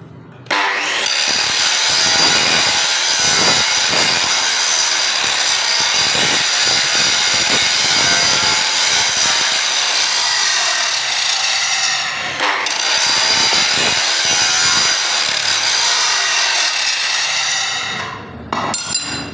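Angle grinder's abrasive disc grinding the surface of a steel bar: a loud, steady high whine with a scratchy grinding hiss that starts about half a second in, dips briefly about two-thirds of the way through, and stops near the end. The grinding takes the steel down to clean bare metal so it will forge-weld.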